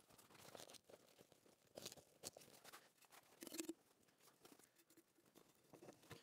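Faint, scattered rustling and crinkling of the tent's stove-jack flap and a metal stovepipe section being handled as the pipe is fed through the tent wall.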